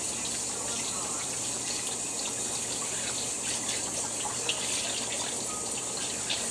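Kitchen tap running steadily while hands are washed under it.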